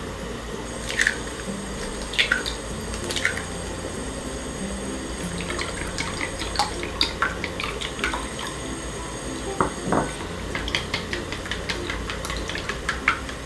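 Eggs cracked into a small glass bowl, a few sharp cracks and drops, then beaten with wooden chopsticks, a quick patter of light clicks as the chopsticks tap the glass.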